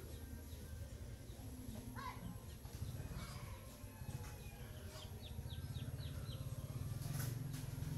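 Faint bird chirps over a steady low hum: one call about two seconds in, then a quick run of about six short chirps.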